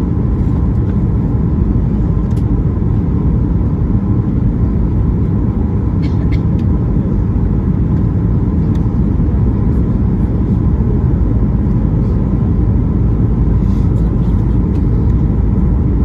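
Steady low rumble of airliner cabin noise during the descent: engine and airflow noise heard from a seat inside the cabin, with a few faint ticks.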